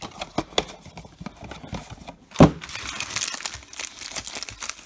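Foil trading-card pack wrappers crinkling and crackling as they are handled, with one loud thump about two and a half seconds in.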